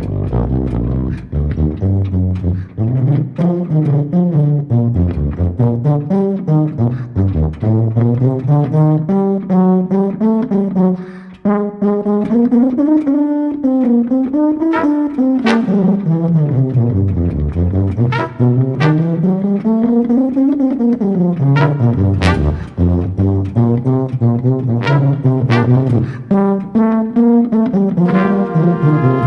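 Jazz brass quartet playing: trumpets, flugelhorn, trombone and tuba. A low brass line glides up and down in long swoops under the higher horns, and brighter held notes come in near the end.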